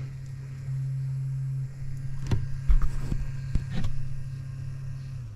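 Small electric coolant pump of a boat motor's water-cooling loop running with a steady hum, a little louder for about a second near the start, with a few light clicks, and stopping near the end. The hum is of a loop that the owner thinks has now been purged of all its air bubbles.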